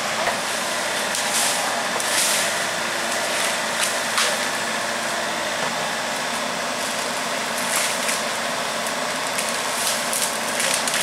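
An excavator's diesel engine running steadily, with a few short sharp crackles over it.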